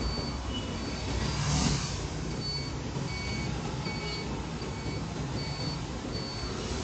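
Low, steady engine and traffic rumble heard from inside a car in slow city traffic. A faint high-pitched beep repeats about every two-thirds of a second, and a brief rush of louder noise comes about a second and a half in.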